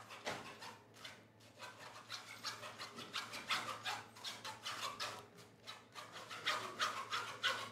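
Repeated short rubbing or scratching strokes, about two a second, louder in the second half.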